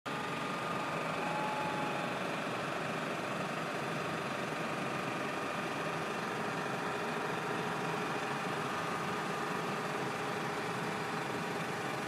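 ECOVACS DEEBOT T30 OMNI robot vacuum running as it drives back and reverses onto its docking station: a steady motor hum with a faint whine.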